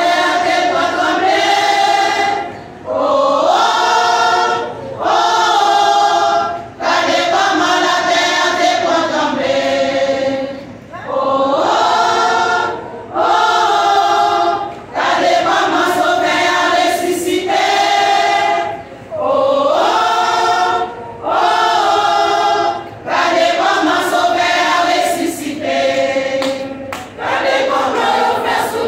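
Women's church choir singing a Haitian Creole hymn together, in phrases of about two seconds with short breaks between them.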